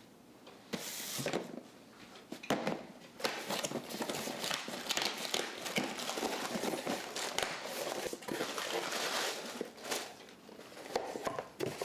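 Packing material being crumpled and handled, an uneven crinkling and rustling that starts about a second in and eases off near the end.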